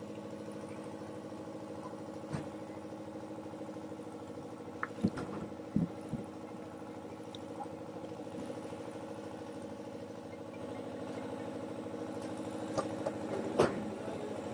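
A steady motor hum, like an engine idling, with a few sharp knocks about a third of the way in and again near the end.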